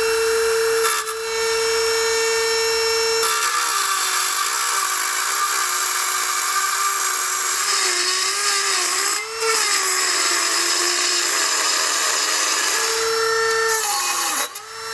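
Dremel rotary tool with a cut-off wheel grinding away thick steel on a car's bumper-beam mount. It whines at a steady high pitch, then a few seconds in the pitch drops and wavers under a gritty hiss as the wheel bites into the metal, rising back to full speed near the end when it is lifted off, and cutting out briefly just before the end.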